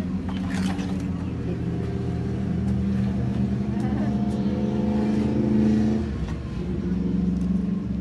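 A motor running with a steady low hum. Its pitch climbs from about three and a half seconds in, then drops back at about six seconds.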